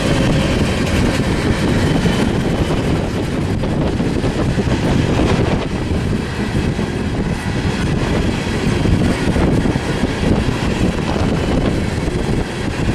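Long manifest freight train's cars rolling past close by: a steady, loud rumble and clatter of wheels on the rails. Wind buffets the microphone throughout.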